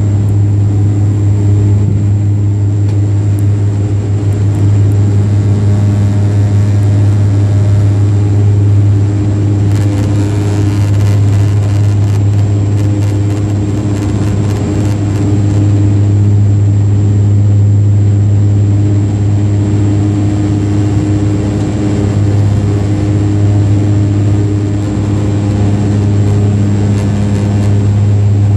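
ATR 72 turboprop engine and propeller at climb power just after takeoff: a steady, loud drone with a deep propeller hum, heard inside the cabin beside the engine.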